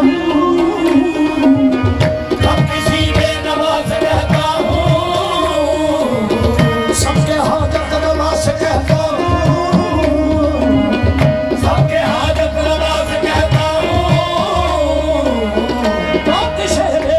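Live qawwali: harmoniums hold a steady drone under a singer's gliding, ornamented melody, while a tabla beats a running rhythm beneath.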